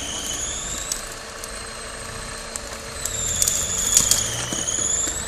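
Off-road 4x4 engine running at low revs, with a high-pitched whine that dips and rises in pitch. The whine gets louder in the second half, with a few sharp clicks.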